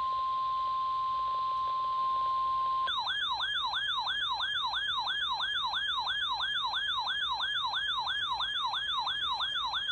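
NOAA Weather Radio warning alarm tone, a steady single high tone near 1 kHz, runs for about the first three seconds. A rapid yelping electronic siren alert then takes over, sweeping up and down about three times a second. This is the alert for a severe thunderstorm warning.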